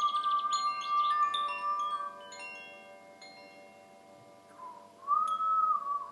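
Wind chimes ringing in a sound-healing session: scattered struck tones that ring out and fade, over a steady high held tone. The chimes thin out and grow quieter after about two seconds, and the held tone dips in pitch and swells back near the end.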